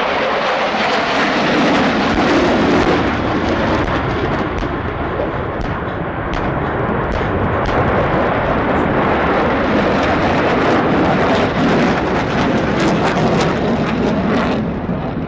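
F-16 fighter jets' engine noise, loud and sustained as they manoeuvre overhead in a mock dogfight, with a crackle of sharp cracks running through it in the second half.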